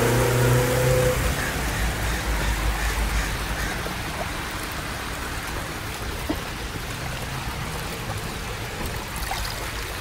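Fountain jets bubbling and splashing into a shallow pool, a steady rush of water. A low hum fades out about a second in.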